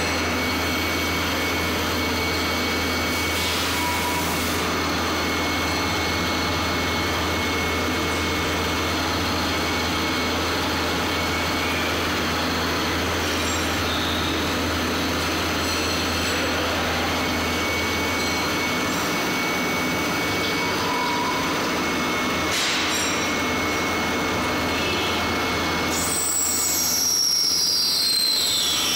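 CNC lathe with bar feeder running: a steady mechanical hum with a thin high whine that drops out and comes back. Near the end a high whine falls steeply in pitch.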